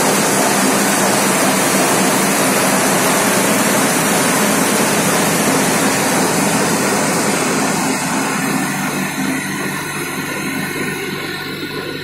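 A tractor running with a SarvaShakthi rotavator (rotary tiller) hitched behind it and coupled to the PTO shaft. It makes a loud, steady mechanical rushing drone with a low hum underneath, which eases off somewhat over the last few seconds.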